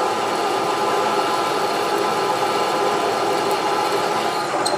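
Pillar drill running as its twist drill bores into a metal block clamped in a drill-press vise: a steady, even machining noise.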